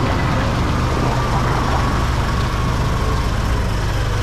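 Heavy diesel engine running at a steady low drone.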